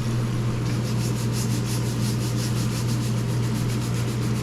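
Soapy RV air conditioner vent filter being scrubbed by hand: quick rhythmic rubbing strokes, several a second, starting just under a second in, over a steady low hum.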